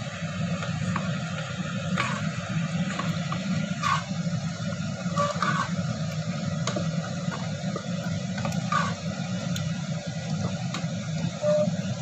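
Steady rushing of water in a kitchen, with a few light clinks of utensils or cookware, about four over the stretch.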